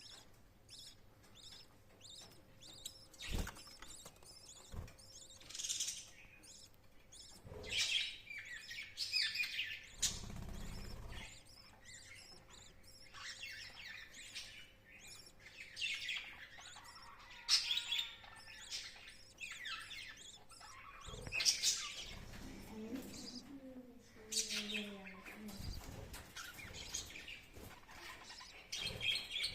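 Pet lovebirds chirping, with short high calls coming on and off throughout, and a few sharp knocks in the first few seconds.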